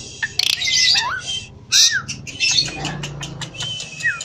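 Javan pied starling calling in a cage: a run of harsh, raspy chattering notes mixed with short whistled glides, with a sharp click about half a second in.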